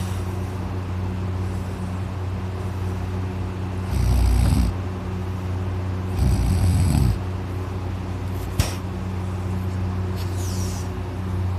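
Loud, heavy snoring from a deeply sleeping person: two big snores, about four and six seconds in, over a steady low hum. A single sharp click comes near the end.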